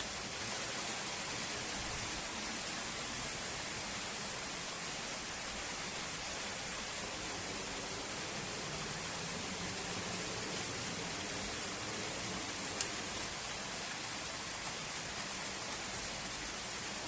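Yamaha Mio Sporty scooter running, heard as a steady, even hissing noise, with a single click about thirteen seconds in. It is being run to listen for a squeak reported in its CVT.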